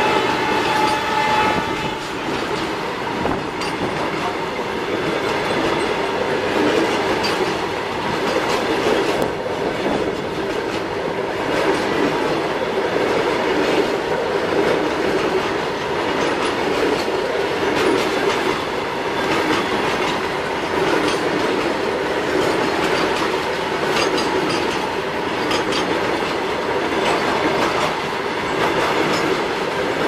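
BCNA covered freight wagons rolling past in a steady, loud rumble, wheels clacking over the rail joints. A steady high tone sounds at the start and stops about two seconds in.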